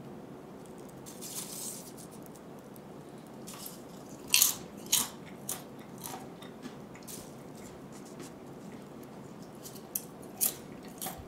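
Popped popcorn crunching and rustling as fingers pick through it in a glass bowl, in scattered sharp crackles, the loudest about four and a half seconds in and again near the end.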